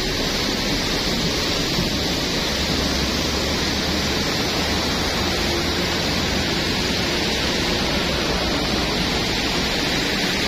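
Muddy river water rushing steadily over a concrete weir at a dam, a continuous even roar.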